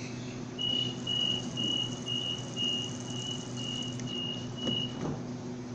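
Door-closing warning beeps on a Sydney Trains Waratah electric train: a run of about nine short, high, even beeps, roughly two a second, as the doors close. A steady low hum from the standing train runs underneath.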